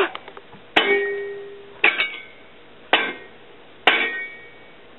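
Metal shovel blade chopping down hard at a rattlesnake on concrete and gravel: four sharp clanging strikes about a second apart, each ringing briefly.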